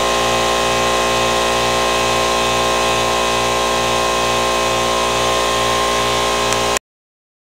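A motor running steadily with a low throb pulsing about twice a second, then cutting off abruptly near the end.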